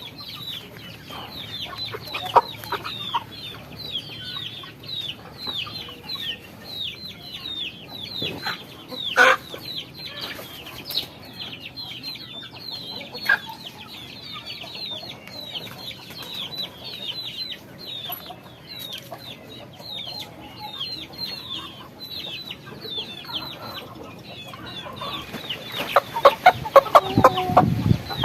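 Flock of chickens calling: a steady chorus of short, high, downward-sliding peeps, with a few louder squawks and a burst of louder calling near the end.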